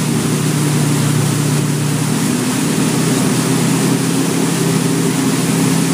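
Ski boat's engine running steadily at towing speed, a constant low drone, under an even rushing hiss of the churning wake and spray behind the boat.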